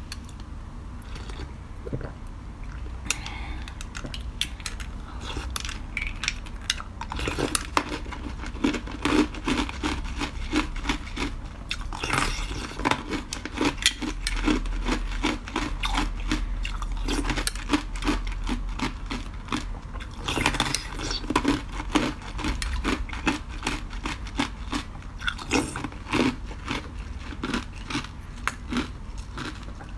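Ice being bitten and chewed up close to the microphone: a fast run of sharp crackling crunches that starts sparse and comes in dense clusters from about seven seconds in.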